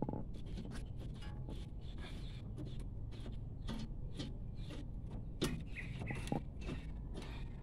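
Light metallic clicks and scrapes of a Toyota Vios front brake caliper being handled and shifted over the brake disc, with two sharper clinks about five and a half and six and a half seconds in.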